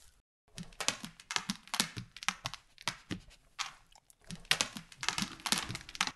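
Quick footsteps of a dog's paws at a run, short crunchy steps about four a second, starting after a brief gap.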